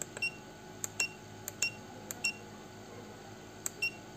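Button presses on FB009 FPV goggles' diversity receiver module: about five sharp clicks, each followed by a short high beep, as the receiver is stepped through its menu to set the video channel to F4.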